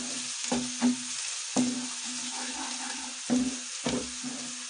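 Chopped garlic and whole spices sizzling in hot mustard oil in a non-stick kadai, with a steady hiss. A wooden spatula stirs them, knocking and scraping against the pan at irregular moments.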